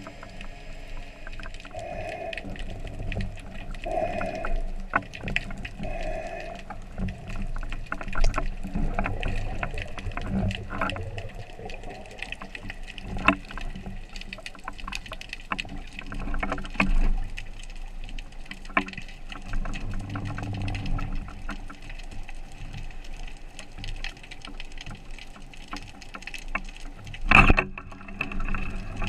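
Underwater sound heard through a diving camera: water noise with scattered clicks and crackles throughout. There is a loud sharp knock about a second and a half before the end.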